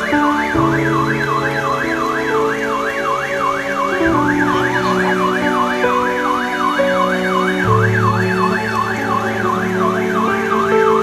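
A siren wailing up and down rapidly, about three sweeps a second, over slow background music of long held chords.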